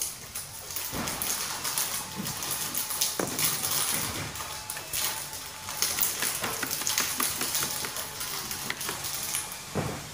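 Plastic snack wrapper crinkling and crackling in the hands, with a few sharper crackles.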